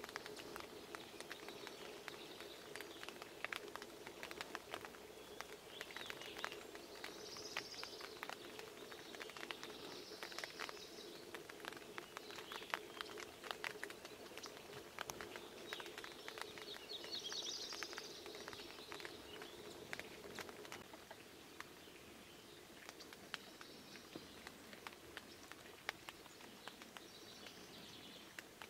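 Several wild songbirds singing and calling in short phrases, one with a fast trill, over many small sharp taps of raindrops. A faint low steady hum stops about three-quarters of the way through.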